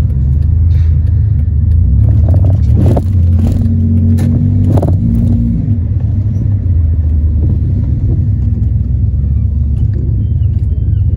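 Steady low engine and road rumble inside the cabin of a 1997 Chrysler Sebring on the move, with a few short knocks about two to five seconds in.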